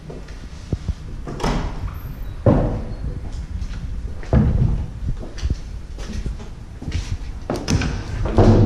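A door being pushed open and swung through, with a series of knocks and thuds, the loudest about two and a half seconds in and again near the end.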